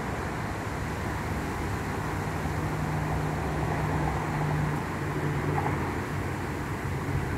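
Motorway traffic heard from about 70 metres away: a continuous wash of tyre and engine noise, with a low steady hum standing out through the middle.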